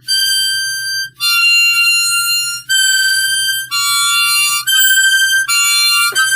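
A wind instrument played loudly as a short western-style tune: a series of held notes and chords, each about a second long, with brief breaks between them.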